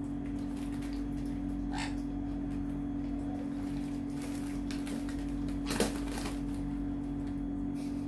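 A steady low hum throughout, with brief splashing from young sun conures and a cockatiel bathing in a shallow tray of water. The loudest splash comes about six seconds in.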